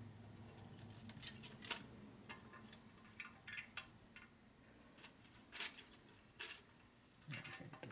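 Scattered light metallic clicks and taps of a steel feeler gauge being handled and slipped against a primary cover's machined face, with a faint low hum fading out about a second in.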